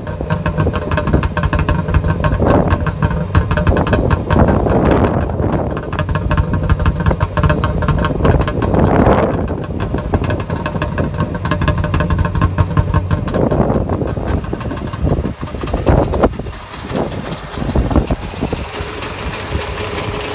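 Trabant 600's two-cylinder two-stroke engine idling, heard from close to the exhaust, with the sound swelling briefly now and then.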